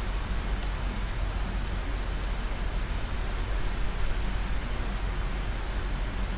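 Steady high-pitched chorus of crickets trilling without a break, over a low steady background rumble.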